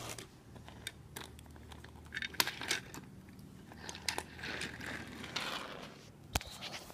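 Scattered light clicks and knocks with faint rustling, as small toy cars are handled and set down on a wooden floor; the sharpest click comes near the end.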